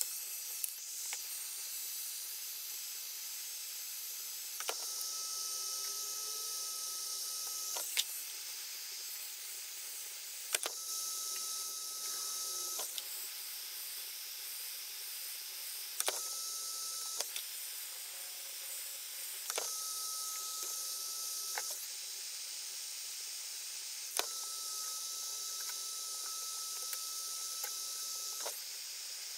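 Heat gun blowing with a steady hiss, used to soften delaminating wood veneer so it can be peeled off. A faint whine comes and goes several times, and a few sharp clicks sound.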